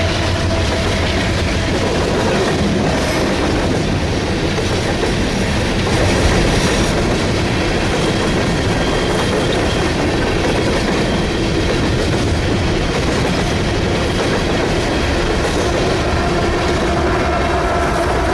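A train rolling past, steel wheels running steadily on the rails.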